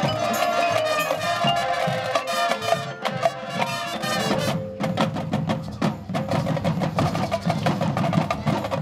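High school marching band playing, with percussion to the fore: pitched mallet-keyboard notes from the front ensemble over the first few seconds, then a passage of rapid percussive taps over a lower band accompaniment from about four and a half seconds in.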